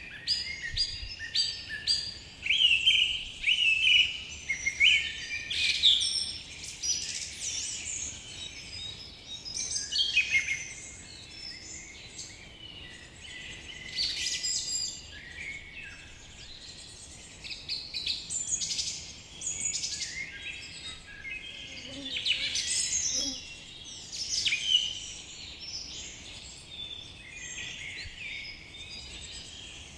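Several birds calling and singing: a busy mix of short, high chirps and whistled phrases, some sliding down in pitch, coming in louder bursts every few seconds.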